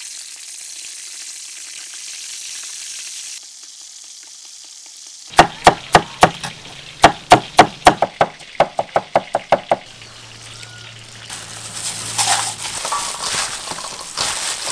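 Oil sizzling as a piece of stingray fries in a steel wok. Then a cleaver chops red chillies on a wooden cutting board: about twenty sharp strikes in two runs, the second quicker. Near the end, shredded lotus root, bean sprouts and chillies are tossed together in a metal bowl.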